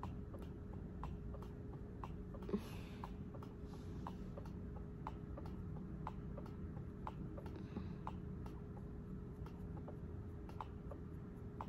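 Faint, even ticking, about two ticks a second, over a steady low hum, with one soft knock about two and a half seconds in.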